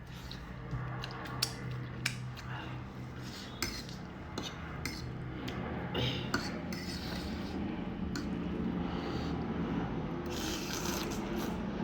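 Cutlery clinking and scraping against a bowl of noodles, in short irregular taps over a steady low hum.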